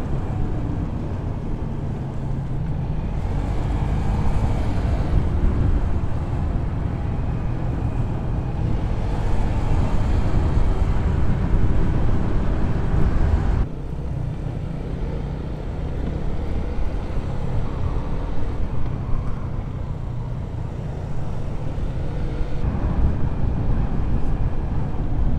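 Motorcycle engine running as the bike rides along, with wind rushing over the rider's microphone. About halfway through the sound drops suddenly, a little quieter and duller.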